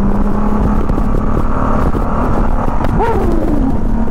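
Liquid-cooled 1500cc carbureted flat-six of a 1999 Honda Valkyrie F6C running at a steady cruise, a smooth, even engine note under rushing wind noise.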